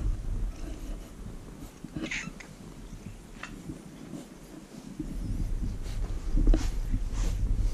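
A ginger-and-white cat meowing briefly, with a short high call about two seconds in, over a low rumble and a few soft rustles.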